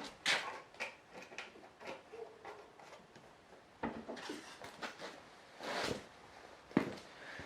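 Handling noises from tools and objects being picked up and set down: a series of knocks, clicks and short rustles, with sharper knocks a little in, about four seconds in and near the end.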